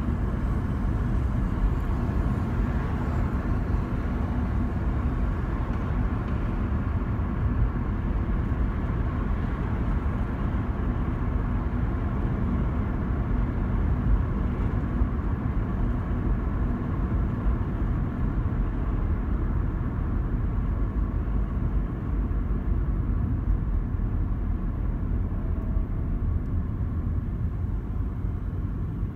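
Steady low rumble of a moving car heard from inside its cabin: tyre and engine noise at a steady cruising speed.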